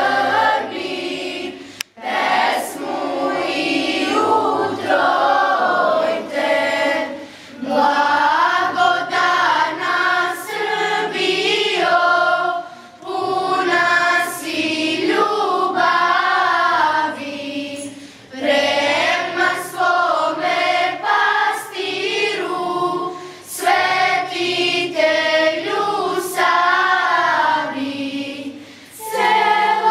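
Children's school choir, mostly girls' voices, singing together in sung phrases separated by short breaks for breath about every five seconds.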